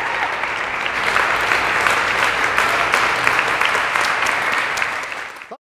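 Theatre audience applauding, a dense steady clapping that stops abruptly near the end.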